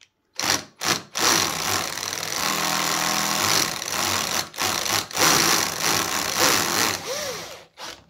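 14.4 V cordless drill/driver running against a clamping knob on a low torque setting, with vibration applied, to try to shake loose a knob that sits on an axial bearing. Two short bursts come first, then about six seconds of nearly continuous running with brief dips.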